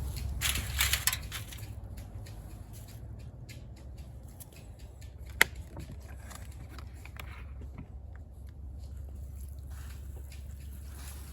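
Wood campfire crackling, with scattered small ticks and one sharp pop about five seconds in, and a brief rustle near the start.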